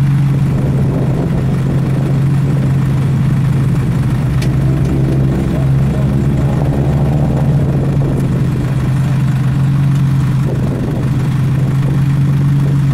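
A vehicle engine idling: a steady, unchanging low hum.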